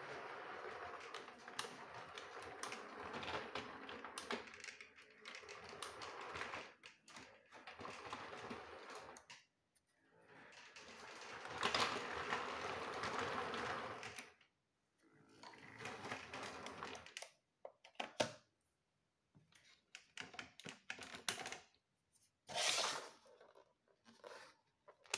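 Playmobil RC train running on plastic track, its motor and wheels clattering. It stops and starts several times, then gives way to scattered short clicks and knocks near the end.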